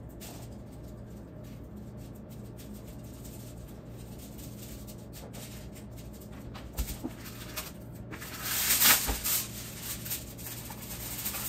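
Hands working at a kitchen table: light taps and clicks over a steady low hum. About eight seconds in comes a loud crinkling rustle lasting a second or so, from aluminium foil being wrapped around a burrito.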